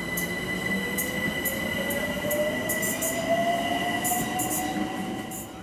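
London Overground Class 378 electric multiple unit pulling out, its traction motor whine rising steadily in pitch as it gathers speed, over a steady high electrical whine. Brief high squeaks from the wheels come through several times.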